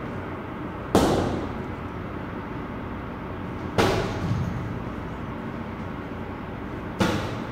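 Heavy punching bag struck three times, about three seconds apart; each hit is a sharp thud that dies away with a short echo off the room's walls.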